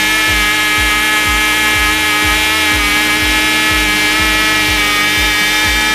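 Two Cox .049 model glow engines coupled by gears, running at high revs: a loud, steady, high-pitched whine.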